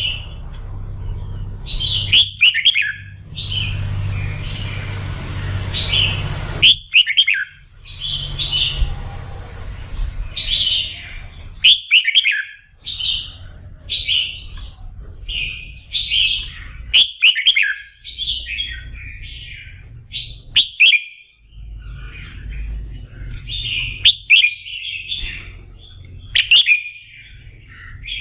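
Red-whiskered bulbul singing short, bright, whistled phrases, one every second or two, over a low background rumble. This is the lively 'kích lửa' song played to rouse other bulbuls into singing for contests.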